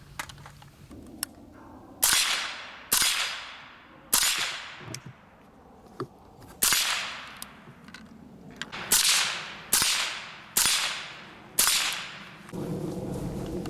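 Suppressed AR-57 firing 5.7x28mm, eight shots at uneven intervals, each a sharp crack trailing off over about a second. A steady low noise comes in near the end.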